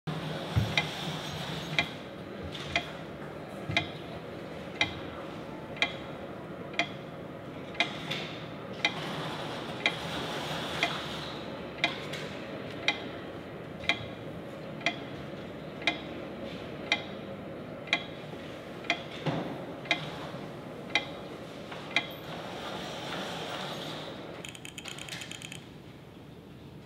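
Steady ticking, about one tick a second, over a soft continuous background hum; the ticks stop a few seconds before the end.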